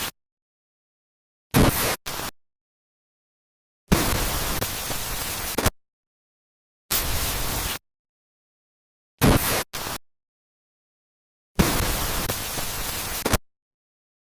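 Sound-effect bursts of hiss-like static that cut in and out abruptly, with dead silence between them. A pair of short bursts is followed by a longer burst of about two seconds and then a shorter one, and the pattern repeats about every eight seconds.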